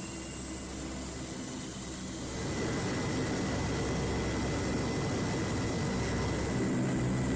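Allison T56 turboprop engines of a C-130 Hercules running, heard from inside the flight deck as a steady low drone. About two seconds in the drone gets louder and a thin steady high whine joins it.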